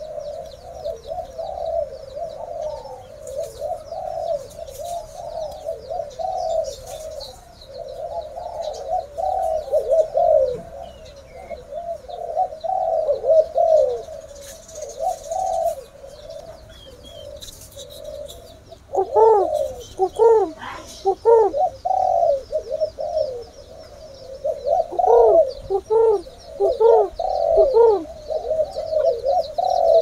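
Many caged spotted doves cooing at once in overlapping calls. A nearer dove's louder, clearer coo series stands out twice, a little past the middle and again near the end. Faint high twittering runs above the cooing throughout.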